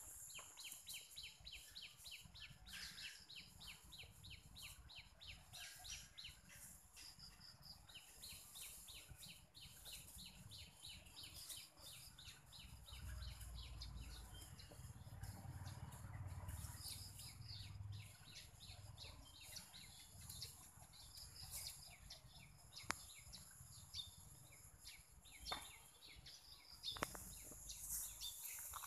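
Quiet outdoor ambience with a fast, even, high-pitched chirping that runs through most of the first half, a low rumble around the middle, and a few sharp clicks near the end.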